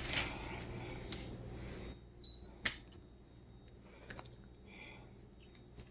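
A humidifier's control panel beeping once, briefly and high-pitched, about two seconds in, followed by two sharp button clicks. A faint hiss is heard before the beep and drops away.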